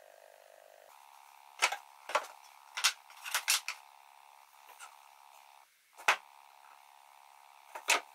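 Pine boards knocked together and set down on a workbench: a run of sharp wooden clacks in the first few seconds, one more about six seconds in and another near the end, over a faint steady hum.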